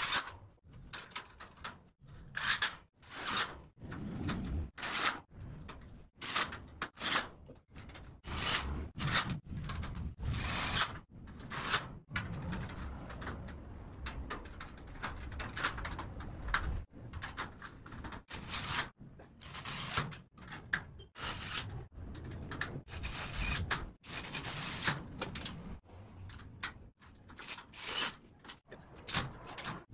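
Galvanized steel drywall studs and tracks clanking and scraping as they are handled and fitted into a cabinet frame, with short bursts of a cordless drill driving screws into the metal. Many short, sudden sounds in quick succession, broken off by abrupt gaps.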